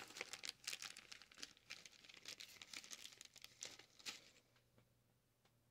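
Faint crinkling and rustling of packaging being handled close by, as a replacement capacitor is picked out. It lasts about four and a half seconds, then stops.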